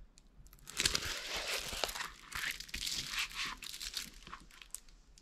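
Clear plastic protective film on a diamond painting canvas crinkling as the canvas is handled and pressed flat by hand. It starts about a second in and eases off near the end.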